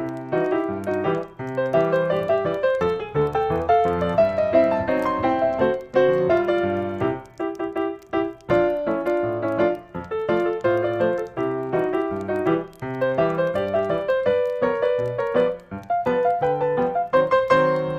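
Background piano music: a steady stream of notes with chords underneath.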